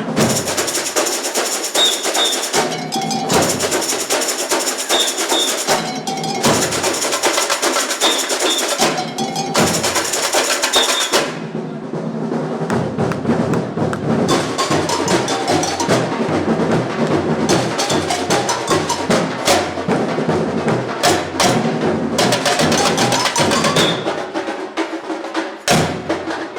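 A samba bateria, a drum corps of surdos, snares, tamborins and shakers, playing a fast, loud samba rhythm. The bright high rattling layer stops about eleven seconds in while the drums carry on.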